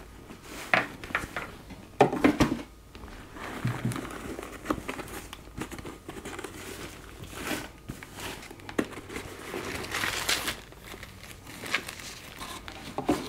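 Plastic bag crinkling and rustling, with a cloth helmet bag rustling, as a half helmet is unwrapped and pulled out, in irregular handling noises with short crackles.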